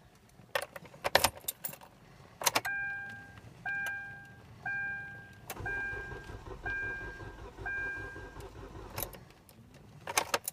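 Keys jangling and clicking in the ignition of a 2011 Hyundai Elantra, then the dashboard warning chime sounding six times about once a second. Partway through the chimes the starter cranks for about three and a half seconds without the engine catching, as the immobilizer keeps the car from starting, and the keys click again near the end.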